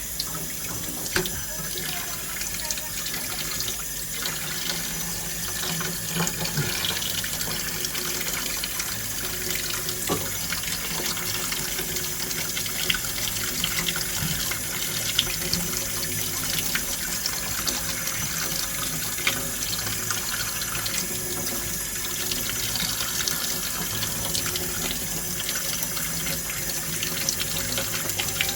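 Water from a tap running steadily into a sink, with scattered small clicks and knocks.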